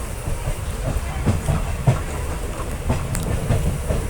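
Rumble of a moving passenger train heard from on board, with irregular clicks and knocks of the wheels over rail joints.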